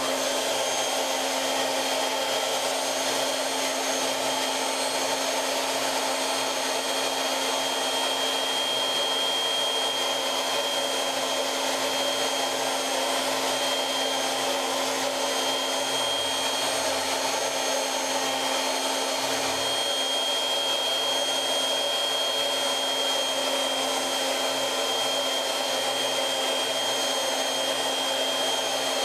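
CNC router spindle spinning a long end mill at about 16,000 rpm and cutting foam: a steady high whine over a constant rushing hiss. This is the cleanup pass, with the tool tracing around the pocket's edges.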